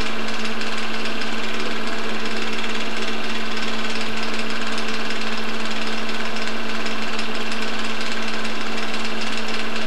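Film projector running as the old reel plays: a steady, rapid mechanical clatter under a constant hum.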